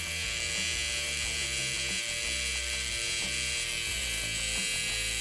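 Cheap Chinese-made rotary tattoo machine running with a steady motor buzz while its needle lines the outline of a tattoo in skin.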